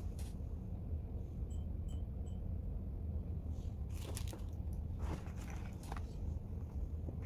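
Hands handling sunglasses parts and a hard-shell glasses case: brief plastic clatters and rustles, about four seconds in, again between five and six seconds, and near the end, over a steady low hum.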